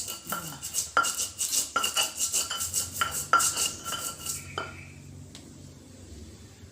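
Pestle (ulekan) pounding and grinding spices in a cobek mortar: a quick run of sharp, ringing knocks, about three a second, stopping about four and a half seconds in.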